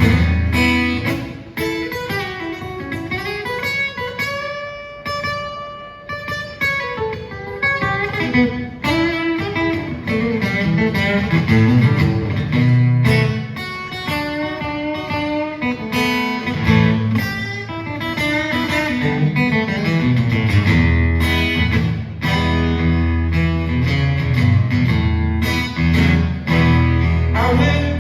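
Instrumental blues guitar break on acoustic guitar: picked single-note lines and chords over a steady low bass part, with a long held, bent note about four seconds in.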